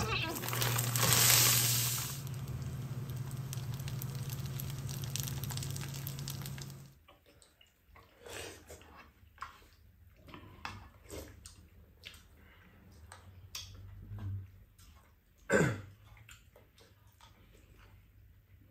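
Fried rice sizzling in an oiled nonstick frying pan: loud for the first two seconds, then a steady sizzle over a low hum, which cuts off about seven seconds in. After that come quieter scattered spoon clinks on the pan and bowls and eating sounds, with one sharp clack of a spoon against the pan near the end.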